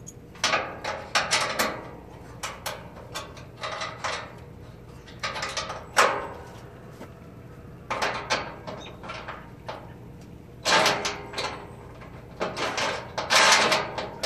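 Irregular bursts of clattering and scraping from hard parts being handled and fitted by hand in a riding lawn mower's engine bay. There are about five clusters of rattling, each lasting up to about a second, with quieter gaps between them.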